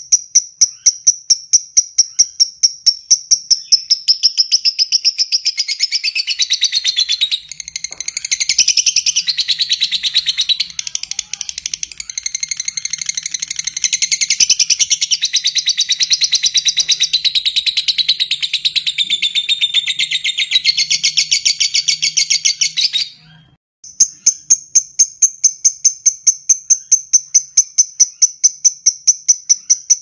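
Caged lovebird ngetik: an even run of sharp ticking chirps about three a second. About four seconds in it breaks into a long, continuous high chattering ngekek lasting nearly twenty seconds. The ngekek stops abruptly and the ticking resumes.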